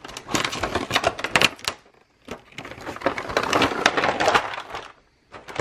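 Clear plastic blister packaging crinkling and clicking as blending brushes are handled in it, in two long bursts of rapid crackles and clicks with a short pause about two seconds in.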